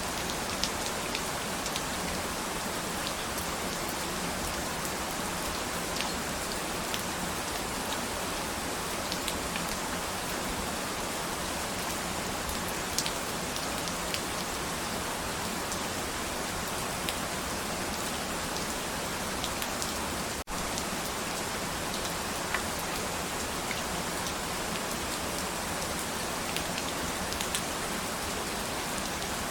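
Steady rain falling, with scattered sharper drop ticks over an even hiss. It cuts out for an instant about two-thirds of the way through.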